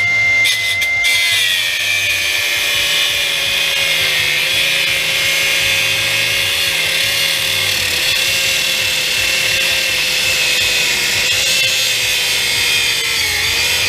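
Handheld electric drill running continuously at speed with a steady motor whine. Its pitch dips slightly about four seconds in, sags again near the end and then cuts off.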